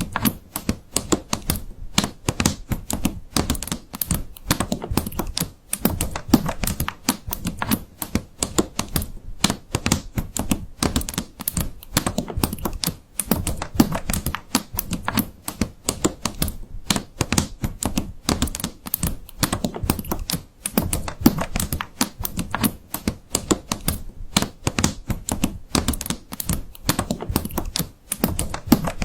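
Computer keyboard being typed on fast and steadily, several keystrokes a second with no real pause.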